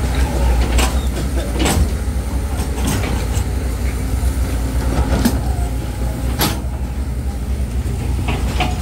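Low, steady engine rumble with five sharp knocks or clicks scattered through it.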